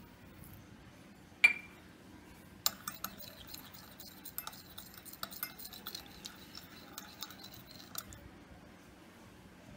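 One sharp, ringing clink of metal on glass about a second and a half in. Then a metal spoon stirs sugar into water in a glass measuring jug, with quick irregular clinks and scrapes against the glass for about five seconds, stopping a little before the end.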